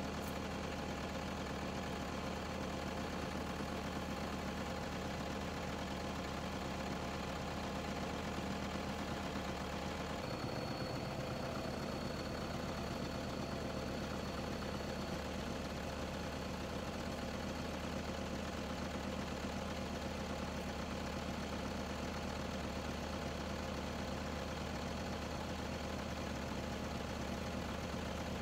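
A vehicle's engine idling steadily, with a faint high whine joining in about ten seconds in.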